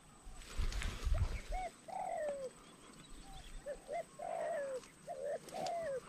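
Green pigeons (punai) calling: a string of short fluting whistles, each note rising then falling. A few low knocks sound about a second in.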